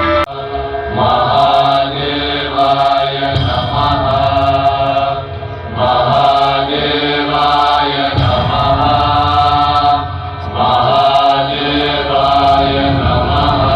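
Chanting of a mantra set to music, sung in repeated phrases a few seconds long with short breaks between them, over a low steady musical bed.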